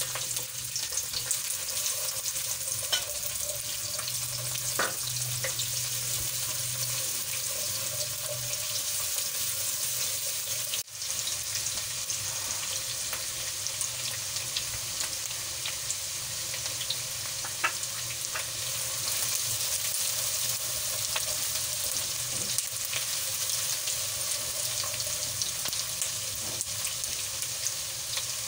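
Sliced onions sizzling steadily in hot oil in a non-stick kadai, with occasional light clicks and scrapes of a spatula stirring them.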